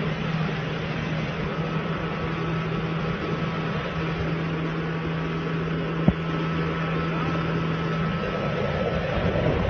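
Small boat's motor running at a steady drone while the boat moves fast over water, with a rush of wind and water. A single sharp click about six seconds in.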